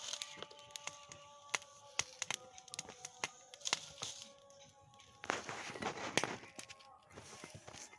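Small wood fire crackling and popping sharply under maize cobs being roasted, with steady held musical notes playing alongside. About five seconds in there is a louder stretch of rustling noise.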